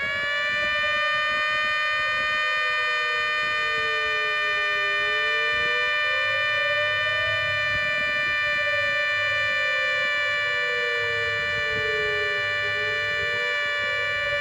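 A 3D-printed six-and-five-port siren on an MS-190 siren motor, running steadily from a 12-volt battery as a held chord of tones. Beneath it a second, lower siren tone slowly falls and rises, twice over.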